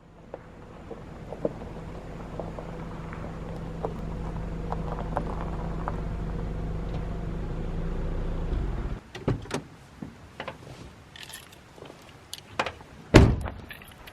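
A car running with a steady low hum that stops abruptly about eight and a half seconds in. Then come scattered clicks and knocks and one loud thunk near the end, like a car door shutting.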